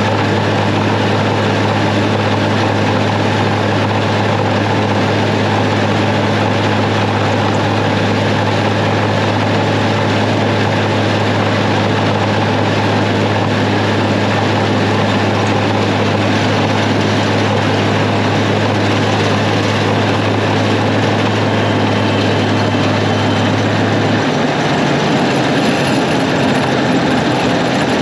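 New Holland 36 pull-behind forage chopper running off an International Harvester 856 tractor, chopping alfalfa and blowing it into the wagon, with a loud, steady deep hum under the machine noise. About 24 seconds in, the steady hum gives way to a rougher, less even running sound.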